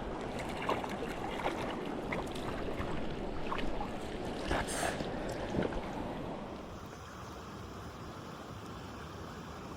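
Mountain stream water running steadily, with scattered small clicks and knocks over the first six seconds. About six and a half seconds in it turns quieter and smoother.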